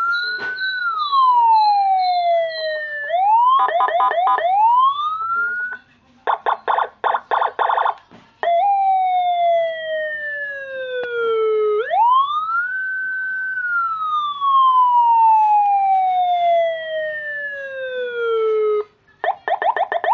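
Electronic vehicle siren cycling through its tones. It gives a wail that rises fast and falls slowly, then a quick yelp a few seconds in, then a rapid pulsing tone. After that come long wails that climb, hold briefly and sink slowly over several seconds, and near the end it switches back to a fast yelp. The siren is a two-in-one unit with Whelen-style and Senken-style tone sets.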